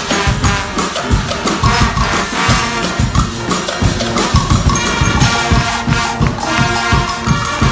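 Guggenmusik band playing live: brass horns in loud chords over a steady drum beat.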